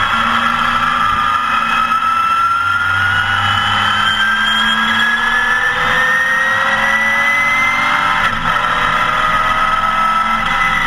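Porsche 914 race car's engine heard from inside the cockpit, pulling hard with its pitch climbing steadily for about eight seconds. A quick gear change drops the pitch, and it climbs again.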